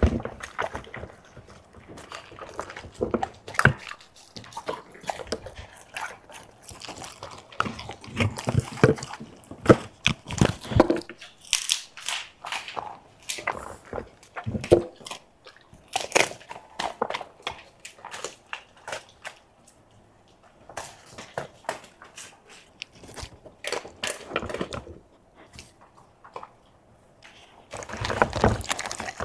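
Dog eating: irregular crunching, chewing and biting on food in quick bursts, with short pauses.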